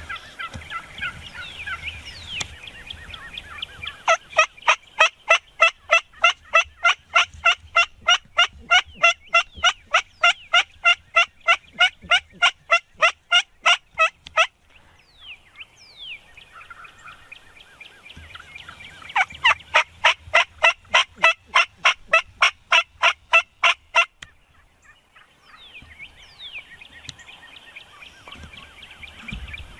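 Wild turkey yelping: a long, even run of loud yelps at about three a second starting a few seconds in, then a shorter run of about fifteen after a pause of a few seconds. Softer chirps and clucks come between the runs.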